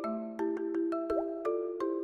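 Playful background music: short bright plucked notes in a bouncy rhythm over held lower notes, with a quick rising 'bloop' about a second in.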